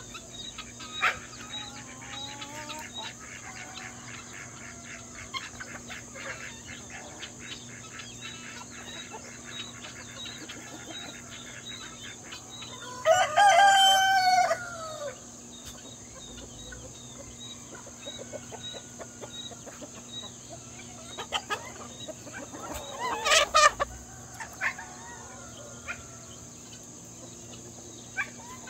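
Backyard flock of chickens clucking, with a rooster crowing once, loudly and for about two seconds, about halfway through. A second loud, shorter call comes near the end.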